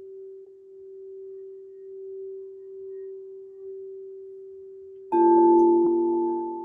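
Singing bowl ringing with a slow wavering swell. About five seconds in, another bowl is struck: a sudden, louder and slightly lower tone that rings on and slowly fades.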